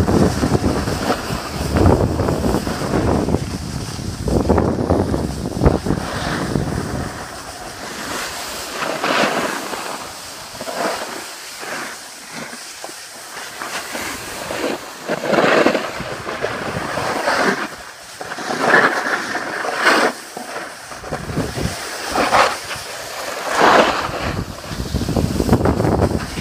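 Wind buffeting the microphone of a camera moving downhill, with the swish of edges scraping over packed snow in repeated surges every second or two as the turns are carved.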